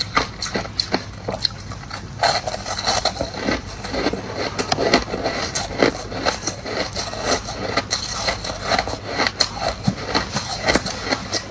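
Crushed ice being chewed, a fast, irregular run of crisp crunches.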